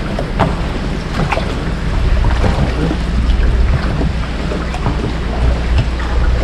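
Wind rumbling on the microphone on a small fishing boat at sea, with short knocks and water splashes scattered throughout.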